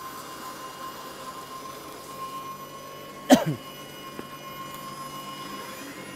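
Allett Stirling battery cylinder mower running for scarifying: a steady high whine from the motor and reel, broken about three seconds in by one sudden loud clatter that drops quickly in pitch.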